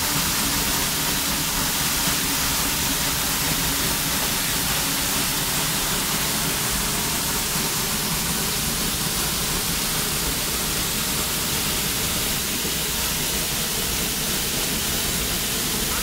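Waterfall, water falling in a steady, unbroken rush.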